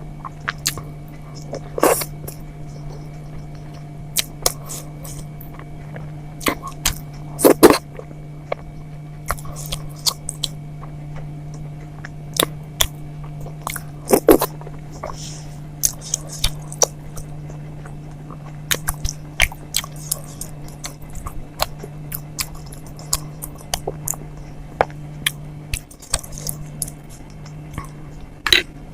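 Close-miked eating of soft idli with sambar and chutney: wet chewing, with mouth clicks and smacks at irregular intervals. A steady low hum runs underneath.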